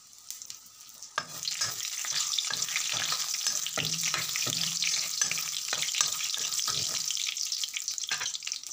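Bengali panch phoron seeds and a bay leaf sizzling and crackling in hot mustard oil in a kadai, stirred with a metal spoon. The crackling starts about a second in and eases near the end.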